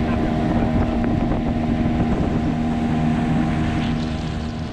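Small boat outboard motor running steadily at cruising speed, with wind buffeting the microphone; the motor fades away near the end.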